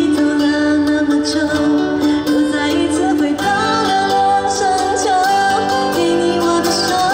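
Live pop song: a singer holding long notes over guitar and a steady drum beat, the melody stepping up to a higher note about three and a half seconds in.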